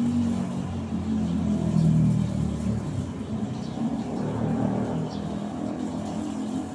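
Low, steady rumble of a motor vehicle engine running close by, swelling about two seconds in and then easing off.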